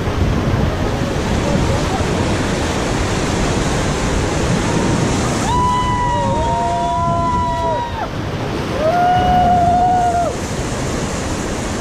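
Whitewater river rushing around a raft, with wind buffeting the microphone. Around the middle, voices let out a long held shout of about two seconds, and a shorter held shout follows about nine seconds in.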